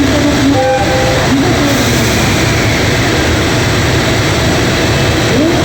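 EF210 electric freight locomotive running alongside the platform: a loud, steady rush of machinery noise, with a brief two-note tone about half a second in.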